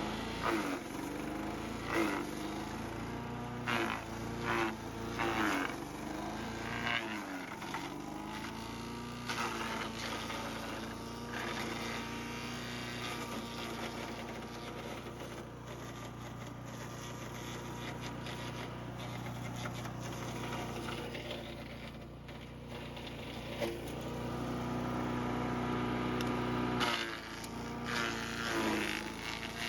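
Champion 224cc four-stroke wood chipper engine running steadily, its pitch dipping and recovering repeatedly as branches are fed in and chipped.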